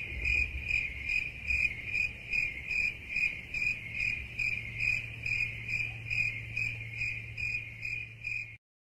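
Crickets chirping in an even, steady rhythm of about three chirps a second over a faint low hum: the classic crickets meme sound effect for awkward silence. It cuts off suddenly near the end.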